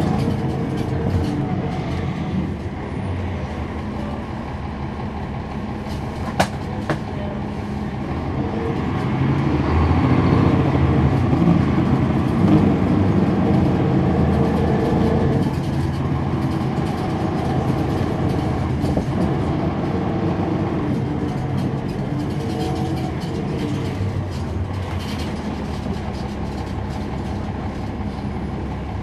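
Cummins ISL9 inline-six diesel of a NABI 416.15 transit bus, heard from on board while the bus is driving. The engine gets louder from about eight seconds in, is loudest around twelve seconds as the bus pulls, then eases back to a steadier running sound. There is a single sharp click about six seconds in.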